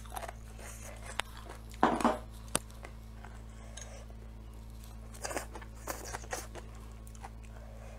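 A ceramic plate set down with a short clatter about two seconds in, then a sharp click and, later, soft clicks of wooden chopsticks against the plate and quiet mouth sounds as food is picked up and eaten. A steady low hum runs underneath.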